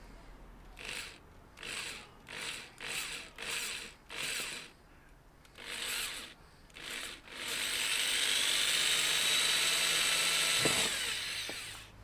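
Electric drill boring holes in a plastic motocross front fender, the trigger pulsed in about eight short bursts. Near the end comes a longer run of about three seconds that winds down when the trigger is released.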